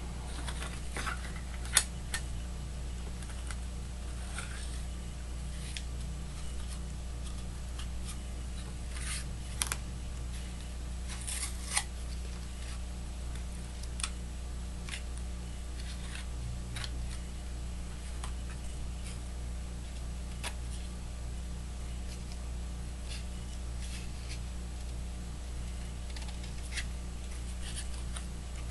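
Hands working on an assembly of glass mirror strips and blue tape: scattered sharp clicks and taps of glass against glass and the table, with short rasps of tape being pulled and pressed down, over a steady low hum.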